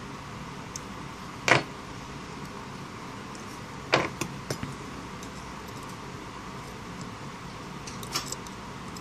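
Short, sharp metallic clicks of small hand tools (tweezers and a soldering iron) knocking against the work and being set down and picked up. There is one clear click about a second and a half in, another at about four seconds followed by a few smaller ticks, and a small cluster near the end, all over a steady background hiss.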